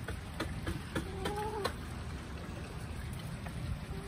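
A hen's drawn-out call, about half a second long and rising slightly, a second or so in, with a few light taps before and after it and another short call starting near the end.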